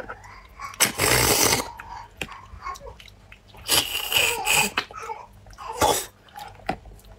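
Close-miked eating sounds: loud slurping and sucking on a piece of food held to the lips, a long slurp about a second in, another around four seconds and a short one near six seconds, with wet lip smacks and chewing clicks between them.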